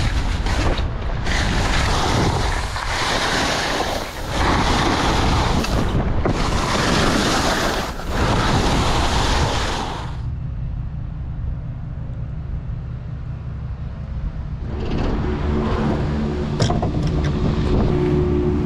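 Wind rushing over a helmet-mounted action camera and skis scraping on soft snow during a downhill run, in loud surges. About ten seconds in the rush drops away for several seconds, leaving a steady low hum, then the rushing comes back.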